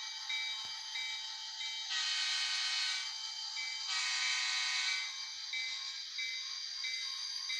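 Background music, thin and high-pitched, with a short note pattern repeating about every half second and two louder held chords around two and four seconds in.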